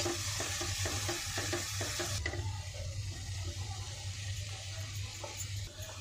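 Steel spoon stirring and scraping a sizzling onion-masala mixture in a nonstick kadai, in quick regular strokes; the sizzle drops away sharply about two seconds in. A steady low hum runs underneath.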